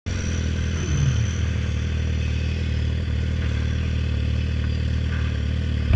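Sport motorcycle engine running steadily, heard from the rider's seat.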